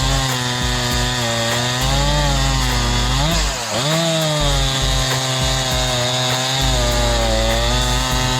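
Jonsered CS2255 chainsaw's 55cc two-stroke engine running at high revs while cutting wood. The engine pitch dips and recovers about three and a half seconds in as the chain loads up in the cut.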